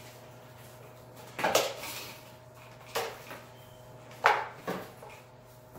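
Three sharp knocks with some clatter from a sump pump and its PVC discharge pipe being handled and shifted, about a second and a half apart, the third the loudest, over a faint steady hum.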